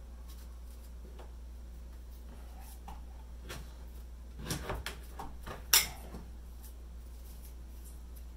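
Kitchen knives cutting ripe persimmons on cutting boards: a few scattered knocks and clicks of the blades on the boards, the sharpest about two-thirds in, over a steady low hum.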